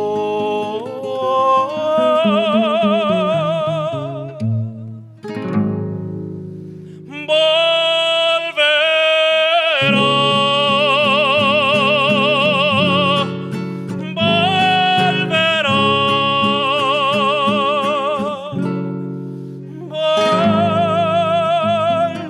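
Music: a solo voice singing long held notes with wide vibrato, a Christian hymn-style song, over a plucked acoustic guitar accompaniment, with short breaks between the sustained phrases.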